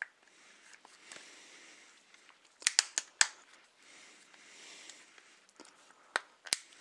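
Landvo L800 smartphone's back cover being pressed onto the phone by hand: faint handling rustle with sharp clicks as its clips snap into place, four in quick succession about two and a half seconds in and two more near the end.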